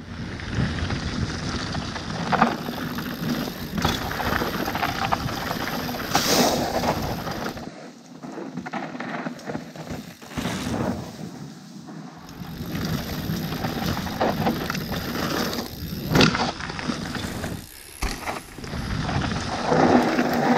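Mountain bike ridden fast down a dirt trail: tyres on dirt, the bike rattling, and wind buffeting the action-camera microphone, with several sharp knocks from bumps.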